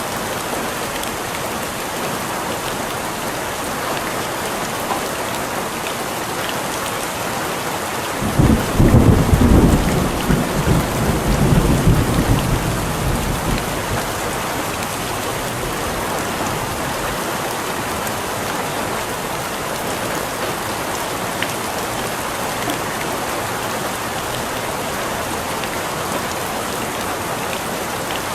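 Steady rain falling, with a roll of thunder about eight seconds in. The thunder rumbles low for several seconds, swells a second time, and dies away.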